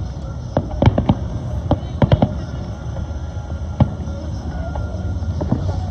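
Fireworks going off: a series of sharp bangs and cracks at irregular intervals, bunched about a second and two seconds in, with one more near four seconds, over a steady low rumble.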